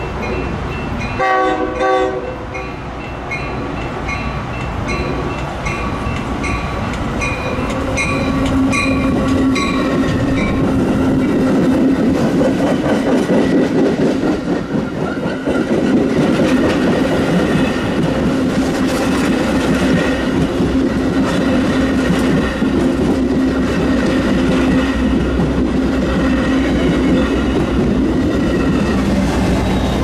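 A train's horn sounds briefly about a second in, while a grade-crossing warning bell dings about twice a second. The bell stops about ten seconds in as a train passes close by, its loud steady rumble mixed with the clickety-clack of wheels over rail joints.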